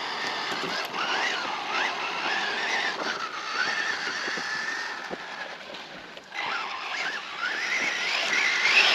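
Brushless electric motor of a Losi Tenacity TT Pro RC short-course truck whining as it drives, its pitch rising and falling with the throttle. The sound drops away briefly about six seconds in, then climbs to a higher whine near the end.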